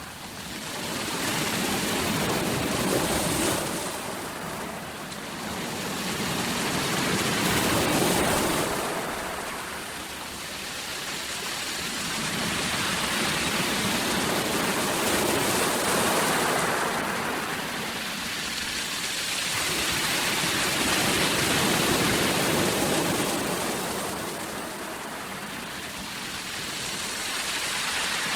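Ocean surf: waves breaking and washing in, the rushing noise swelling and ebbing in slow surges about four times.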